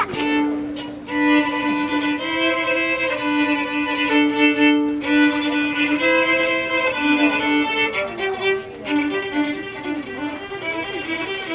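Solo violin playing a slow melody of held notes that step from one pitch to the next, with wavering, sliding notes about two-thirds of the way through.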